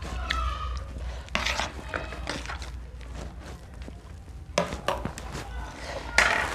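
Chewing and crunching of raw vegetables and jengkol, heard as irregular short crisp crunches over a steady low hum.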